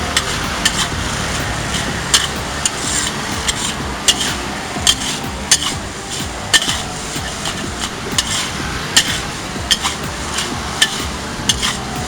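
Metal spatula scraping and clanking against a wok as fried rice is stir-fried. Sharp clanks come irregularly, about one or two a second, over a steady sizzling hiss.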